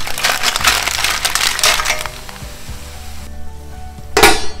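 Live mussels tipped into a hot frying pan of chopped vegetables, their shells clattering against each other and the pan over a frying sizzle. The clatter stops about two seconds in, leaving a quieter sizzle, and a short loud rush of noise comes near the end.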